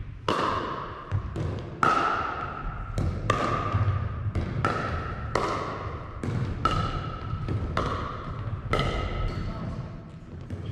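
Pickleball rally: hard paddles popping against the plastic ball, and the ball bouncing on the wooden gym floor. The sharp hits come roughly every half second to a second, and each one rings out in the hall's echo.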